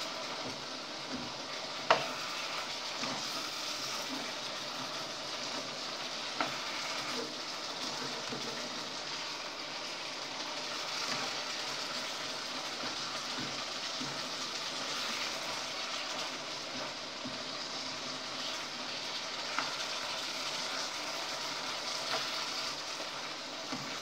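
Chicken halang-halang cooking in a pan on the stove, with a steady sizzle. A few sharp clicks of a utensil against the pan come through it, the loudest about two seconds in.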